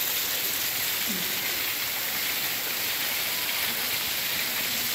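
Steady rain falling, an even hiss that holds level without breaks.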